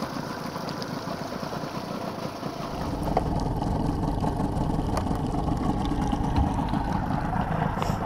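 Engine running steadily, growing louder and deeper about three seconds in.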